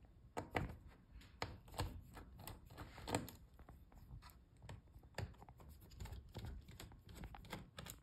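Faint, irregular clicks and taps of a small screwdriver working the tiny hinge screws on a laptop's motherboard, with parts handled between them.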